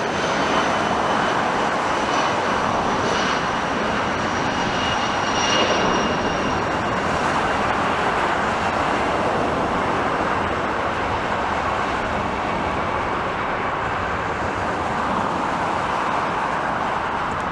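Jet airliner engines running with a loud, steady rushing roar. A high whine over it fades out about halfway through.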